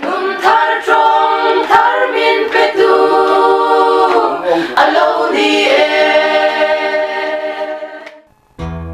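Women's choir singing a cappella in parts, with long held notes. The singing fades out about eight seconds in, and instrumental music cuts in right at the end.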